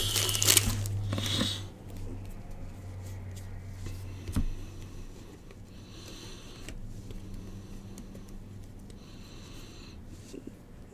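Foil wrapper of a Bowman baseball card pack crinkling as it is torn open, then a single knock and soft sliding of cards being flipped through by hand.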